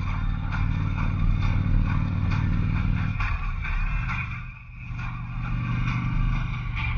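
2003 Harley-Davidson Electra Glide Classic's Twin Cam 88 V-twin running under way, heard from on the bike with wind noise over it. The engine note drops about three seconds in and eases off briefly a little later, then pulls steadily again.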